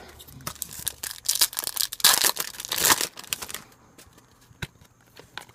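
Foil trading-card pack wrapper being torn open and crinkled, a run of rough tearing and crackling rasps that dies away after about three and a half seconds, with a single click near the end.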